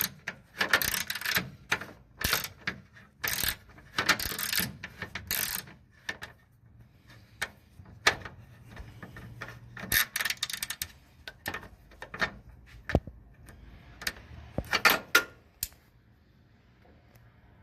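Hand tools working on the engine: repeated bursts of ratchet-like clicking and metal clinks, dense for the first six seconds, then sparser single clicks and one more burst near the end.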